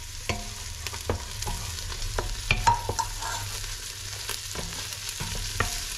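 Wooden spoon stirring and knocking against a stainless steel pot, with irregular clacks, as chopped onion, garlic, ginger and green onion sauté and sizzle in oil.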